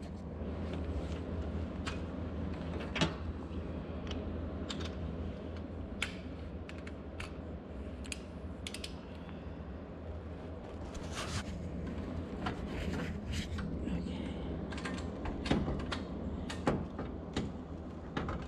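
Scattered metallic clicks and clatter of hand tools as a socket extension is fitted back onto a wrench, over a steady low hum.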